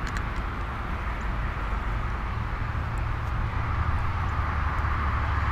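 Steady low rumble and hiss of wind buffeting an action camera's microphone, with a few faint ticks.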